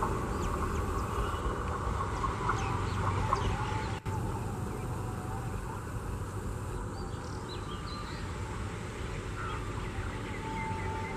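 Scattered bird chirps over a steady low rumble from the departing train.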